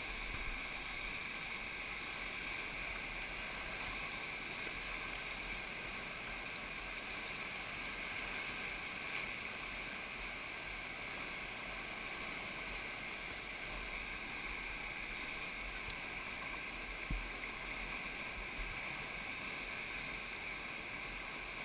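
Class 3–4 whitewater rapid rushing steadily around a kayak at water level, with a few light knocks about halfway through and later.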